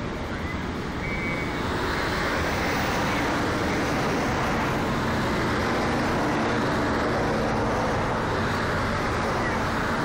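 Road traffic: cars driving past on a wide road, a steady rush of tyre and engine noise that grows a little louder about two seconds in.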